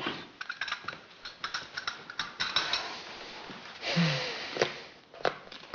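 A quick, irregular run of light clicks and taps that thins out into a few separate sharp clicks near the end.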